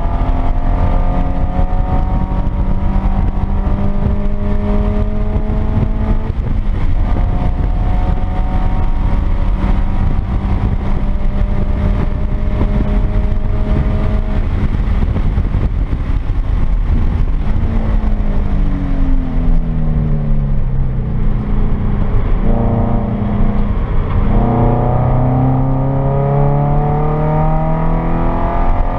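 2013 Subaru BRZ's flat-four engine, with catted unequal-length headers and a resonated aftermarket exhaust, heard from inside the cabin under hard track driving. It pulls up through the revs with a gear change about six seconds in, runs on up, then the revs drop in steps with short blips as it shifts down under braking, and it climbs again near the end. Constant tyre and road rumble runs underneath.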